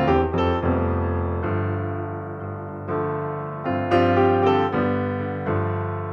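Background piano music: notes and chords struck and left to decay, with new chords near the start and again about four seconds in.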